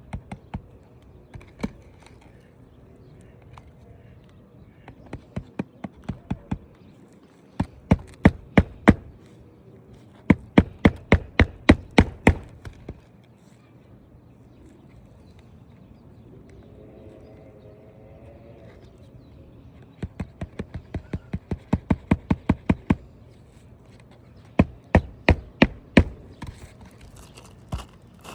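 Roofing nails being hammered into asphalt shingles: runs of quick, sharp hammer blows, several strikes per nail, with short pauses between nails.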